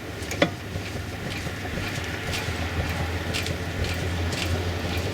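A car body rocked by hand on its rear suspension, which has KONI Sport shock absorbers whose lower mounting bolts have just been re-tightened under load. Only a few faint ticks are heard, over a steady low hum.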